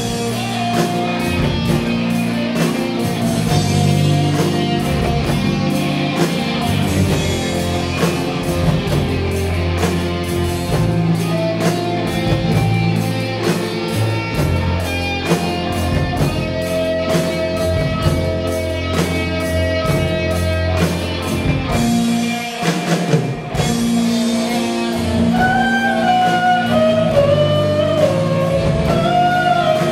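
Live rock band playing: electric guitars, bass, keyboard and drum kit, with a held melody line over the top and a brief drop in the music about two-thirds of the way through.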